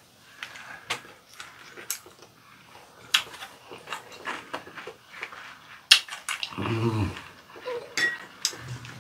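Eating at the table: chopsticks clicking and scraping against ceramic bowls, with chewing, and a short low hum from one of the eaters about seven seconds in.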